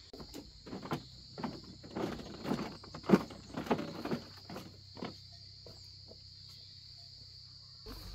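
Insects chirring in a steady, high, even drone, with a run of irregular knocks and rustles over the first five seconds, the sharpest about three seconds in.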